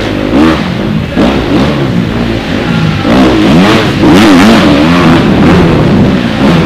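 Motocross bike engine revving hard and easing off again and again, its pitch rising and falling several times over a few seconds.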